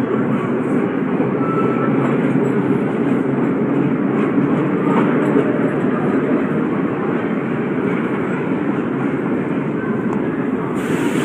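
Vintage R1–R9 'Arnine' New York City subway cars running past a station platform: a steady, loud rumble of steel wheels on rail, with a brief hiss near the end.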